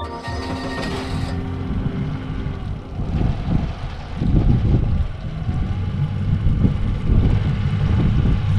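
Low, uneven rumble of an engine running, with wind buffeting the microphone; the tail of background music fades out in the first couple of seconds.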